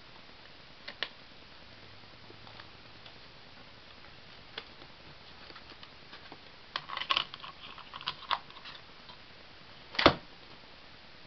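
Handling a Blu-ray disc and its plastic case: scattered small clicks, a busier run of clicks and rattles about seven to eight seconds in, then one sharper knock about ten seconds in, the loudest sound.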